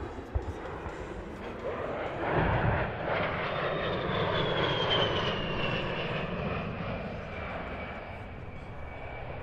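A Fairchild Republic A-10 Warthog's twin TF34 turbofan engines passing by: the jet noise swells about two seconds in, and a high whine falls steadily in pitch as the aircraft goes past and draws away, the sound slowly fading.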